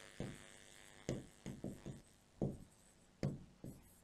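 Felt-tip marker writing on a whiteboard: a string of short squeaky strokes, about seven over the few seconds.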